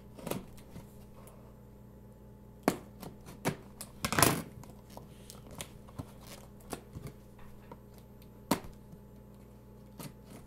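A kitchen knife cutting the sealing tab of a cardboard motherboard box: scattered clicks and taps of blade and fingers on the cardboard, with one louder, longer scrape about four seconds in. A refrigerator hums steadily underneath.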